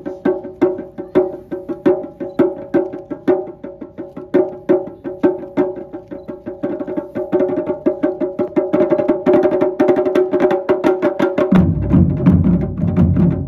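Taiko drum ensemble: rapid, sharp wooden clicks ring out over a steady held tone. About eleven seconds in, the big drums come in with heavy, loud low strokes.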